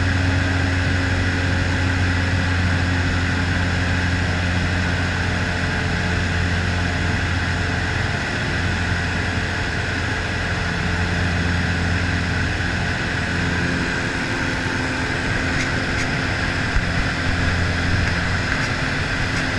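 American Champion Super Decathlon's four-cylinder Lycoming engine and propeller running steadily in cruise flight, heard inside the cockpit with airflow noise over the cabin.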